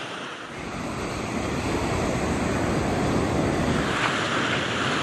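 Steady rushing of wind and waves breaking on a beach, with a low wind rumble on the microphone. The noise grows brighter and hissier about four seconds in.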